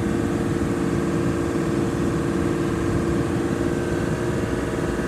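Ford 7.3-litre Power Stroke V8 turbo-diesel held at a steady raised speed of about 2,000 rpm, running evenly at a constant pitch.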